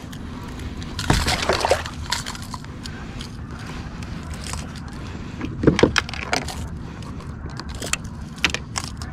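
A landed bluefish thrashing and splashing at the side of a kayak while it is held and unhooked, in two louder bursts about a second in and around six seconds, with light metallic clicks and rattles of pliers and a fish lip gripper in between.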